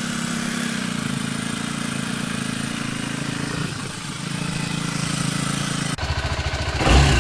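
BMW G 310 GS's single-cylinder engine running steadily at idle. About six seconds in it turns louder and lower with an uneven pulse.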